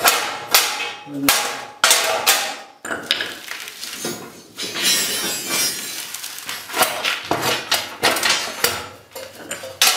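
Hammer blows on steel rebar being driven through the holes of a steel-plate snow-guard bracket: sharp metallic strikes about twice a second, the rod a tight fit. Midway the hammering stops for a few seconds of metal scraping and rattling as the rods are worked through by hand, then more knocks follow.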